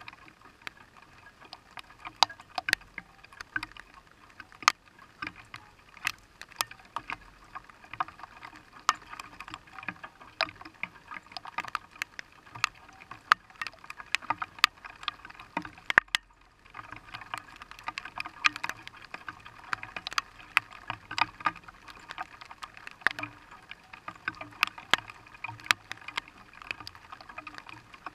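Raindrops hitting wet glass close to the microphone: a steady, irregular tapping of sharp ticks, with a brief lull a little past halfway.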